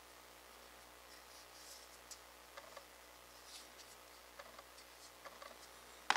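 Quiet handling of a PVC pipe shaft fitted with clear acrylic gears: soft scrapes and light ticks. A sharp click comes near the end.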